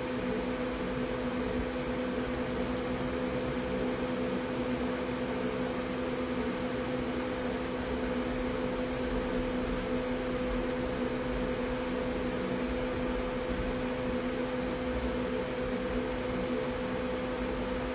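Steady hiss with a constant low electrical hum, unchanging throughout, with no distinct events.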